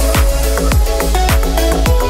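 Background electronic dance music with a steady beat and a deep bass line.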